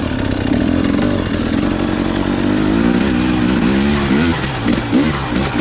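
KTM 300 XC-W two-stroke enduro bike's engine revving up and down under throttle while climbing a rocky trail, with quicker rises and falls in pitch in the second half.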